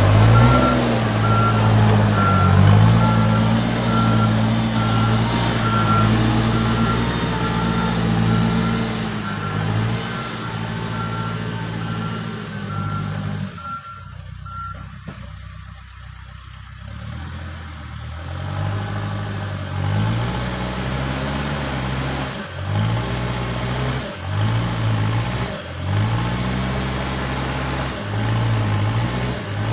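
Diesel engine of a tractor loader backhoe working under load, its revs rising and falling, with a reversing alarm beeping steadily through the first half. In the second half the engine revs up in a series of short surges.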